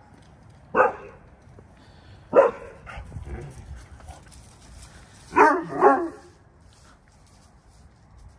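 A dog barking: four barks, one about a second in, another a little past two seconds, then two in quick succession a little past five seconds.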